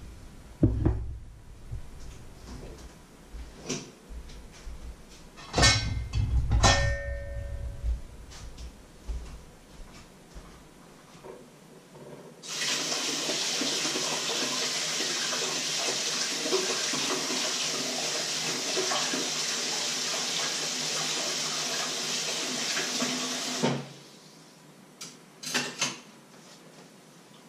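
Kitchen tap running into the sink for about eleven seconds, switched on and off abruptly. Before it come a few knocks and a loud clatter of kitchenware with a brief ring; a couple of clicks follow near the end.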